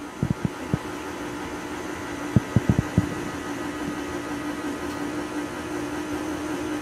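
KitchenAid stand mixer running on low, a steady motor hum, as the flour mixture goes into the pumpkin batter. A few soft knocks come near the start and again about two and a half seconds in.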